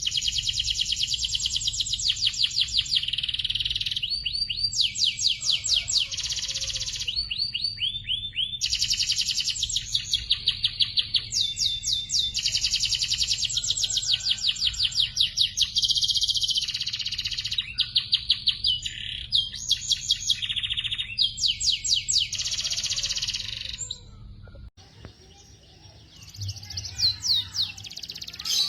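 Domestic canary singing long, rapid trills and rolling phrases one after another, with a short break near the end before the song resumes, over a faint steady low hum.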